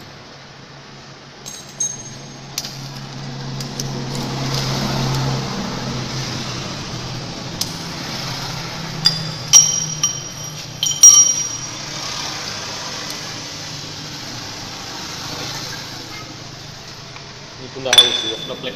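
Metal clinking and knocking: a few sharp clinks that ring briefly around the middle, and a louder clatter near the end, over a steady low hum.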